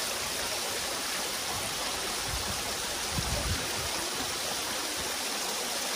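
Water from a small artificial rock waterfall splashing steadily over stone ledges, an even rushing sound with no change in level.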